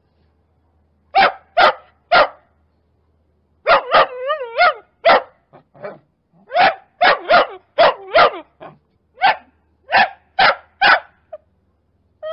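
A puppy barking: more than a dozen short barks in irregular runs, with a brief wavering whine just after four seconds in.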